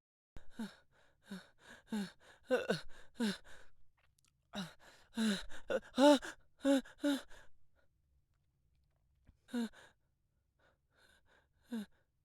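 A person panting heavily, out of breath from running: quick voiced gasps about two a second for the first seven seconds, with a short break about three and a half seconds in. Then a near-quiet stretch broken by a few single gasps.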